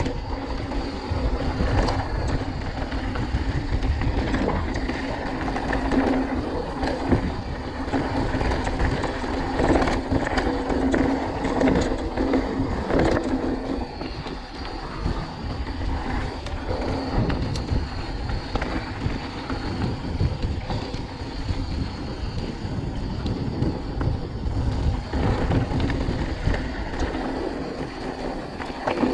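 Mountain bike rolling fast down a gravel track: steady tyre crunch and rumble, wind buffeting the microphone, and frequent sharp rattles as the bike hits stones.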